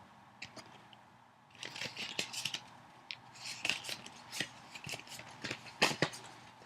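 Trading cards and their foil pack being handled: irregular crisp rustles and card clicks in short clusters, with a sharper snap about six seconds in.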